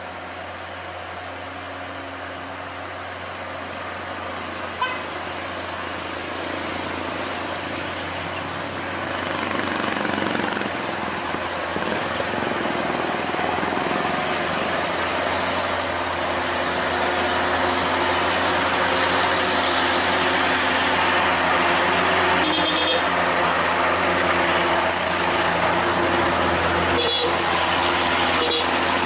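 Diesel truck engines running on a hill road, the noise growing louder as the trucks come close. Short horn toots sound near the end.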